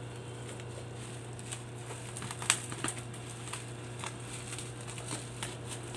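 Bubble-wrap packaging of a parcel crinkling and crackling as fingers pick at it, in scattered sharp crackles, the loudest about two and a half seconds in.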